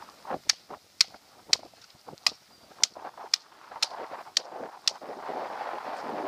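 A blade cutting along a gar's hard, armored scales during cleaning, giving a series of sharp cracks about every half second, then stopping near the end.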